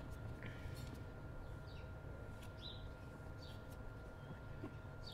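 A small bird chirping outdoors: short high chirps, about one a second, over a low steady rumble and a faint hum.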